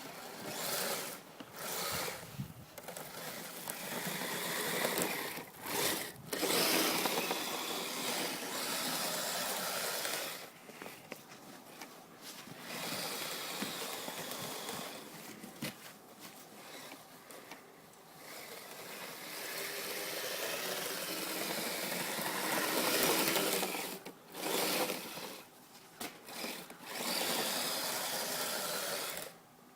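Electric motor and gear drive of a Kyosho Blizzard SR radio-controlled tracked snow vehicle whining as it drives through snow. It runs in stretches of a few seconds, with short stops and changes in speed between them.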